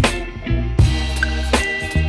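Background music: a beat-driven R&B-style track with drum hits about every 0.8 s over a steady bass line.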